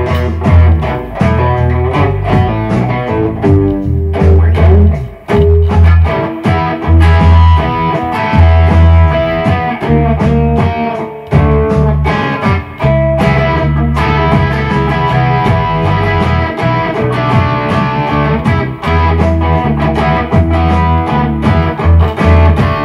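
Electric guitar (Fender Stratocaster) playing a bluesy riff with picked single notes over a heavy bass guitar line and a slow hip-hop drum loop.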